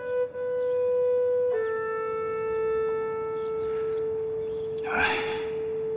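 Background score: a woodwind holding long sustained notes, stepping down to a lower note about a second and a half in. A brief noisy rustle comes about five seconds in.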